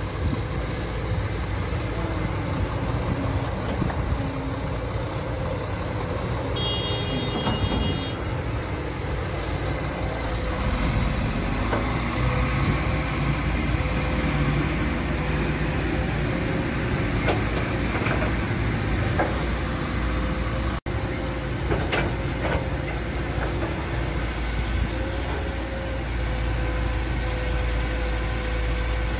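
Kobelco crawler excavator's diesel engine running steadily under load while it digs and loads earth, with a steady whine over the engine and a few knocks in the middle stretch.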